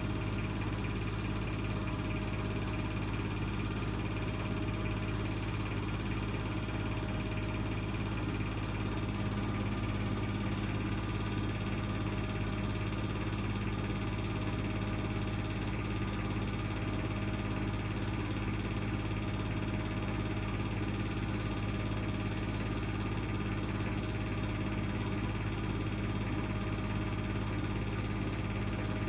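Bosch WVH28360GB washing machine spinning, a steady low mechanical hum and drone that holds even throughout; this is the funny noise the machine makes when spinning.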